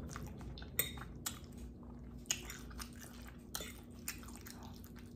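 Close-miked chewing of a mouthful of spaghetti: soft, wet mouth clicks and smacks, with a fork working in the pasta on a ceramic plate in the second half.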